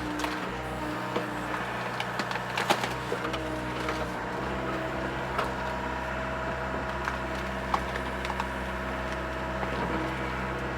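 Mini excavator's diesel engine running steadily while its hydraulics whine in short spells under load, with scattered sharp cracks and snaps of tree roots breaking as a stump is pulled out.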